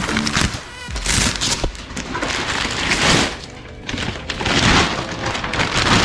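Clear plastic sheeting and bubble wrap crinkling and rustling in several loud surges as it is pulled off a new motorcycle, over background music.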